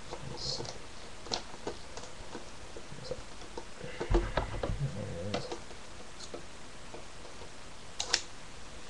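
Light clicks, taps and rustles of hands handling and working at a metal DVD tin to open it, with a low bump about four seconds in and a sharper click near the end.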